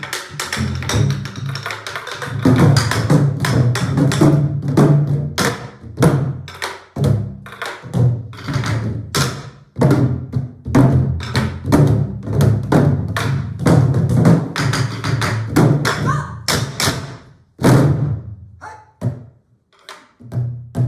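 Ensemble of pansori barrel drums (sori-buk) played together: deep palm strokes on the drumheads and sharp stick strikes on the wooden shells in a dense rhythm, thinning to sparser strokes in the last few seconds.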